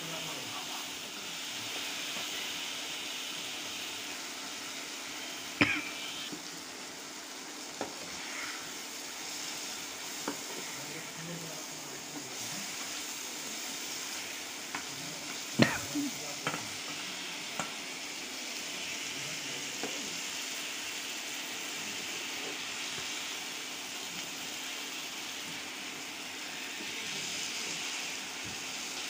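Spiced onion masala sizzling in oil in a frying pan while a spatula stirs it and then turns fried tilapia pieces through it. A few sharp knocks sound in the pan; the loudest come about six seconds in and again about sixteen seconds in.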